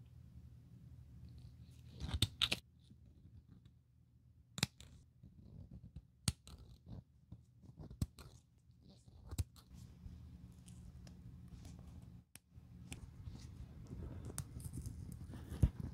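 Thread snips and small scissors cutting through the stitching of a leather tab: a series of short, sharp snips at irregular intervals, one every second or two.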